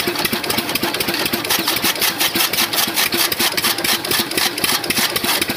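12 hp single-cylinder diesel engine running steadily under load, belt-driving a chaff cutter that is chopping green fodder stalks: a fast, even clatter of knocks over the engine's chug.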